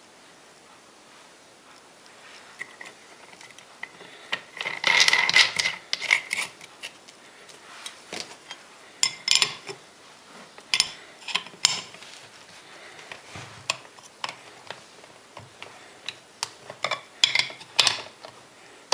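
Metal parts of an angle grinder being handled and fitted: irregular clinks and clicks, with a longer scraping rasp about five seconds in.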